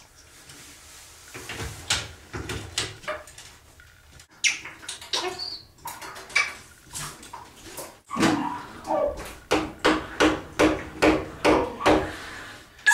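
African grey parrot blathering: a mix of clicks, squawks, short whistles and mumbled speech-like sounds. It builds to a fast string of repeated calls in the second half, about two to three a second. A shower runs faintly behind it.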